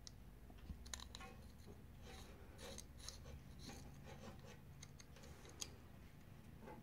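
Faint scratching, rubbing and light clicks of a screwdriver and a small circuit board being handled as the board is screwed onto its metal bracket, with one sharper tick about five and a half seconds in.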